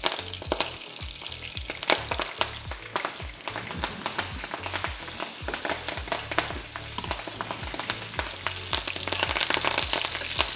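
Rocket (arugula) leaves frying in hot sunflower oil in a pan, with a dense, steady crackle and spitting that grows a little louder near the end. The oil is hot enough: the leaves start popping as soon as they go in.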